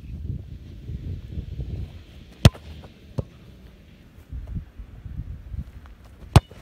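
Football kicked hard twice: two sharp thuds, one about two and a half seconds in and one near the end, as shots are struck at goal.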